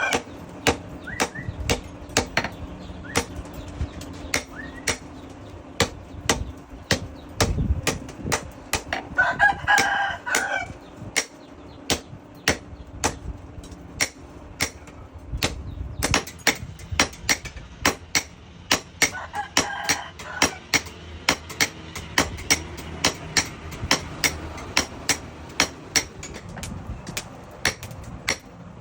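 A hammer striking metal in a steady forging rhythm of about two blows a second. A rooster crows twice in the background, about a third and two thirds of the way in.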